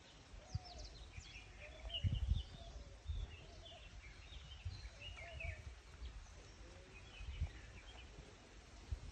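Birds chirping and twittering in short calls, with a few lower curved calls among them, over a faint outdoor hush. Dull low bumps on the microphone break in now and then, the strongest about two seconds in.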